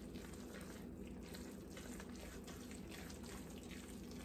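Faint wet squishing of moist, broth-soaked cornbread dressing being stirred with a spoon in a metal pan, over a low steady hum.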